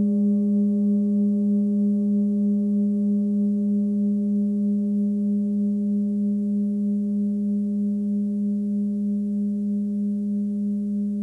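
Forged 18 cm Sun Moon singing bowl ringing on, a steady hum at its 205 Hz G-sharp note with fainter higher overtones. The tone pulses gently and evenly and fades very slowly.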